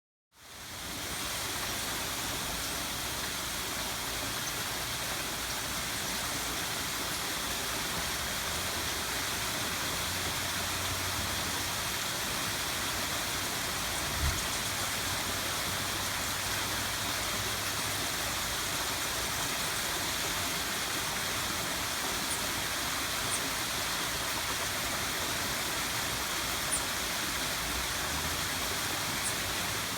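Waterfall rushing: a steady, even roar of falling water, with a small bump about halfway through.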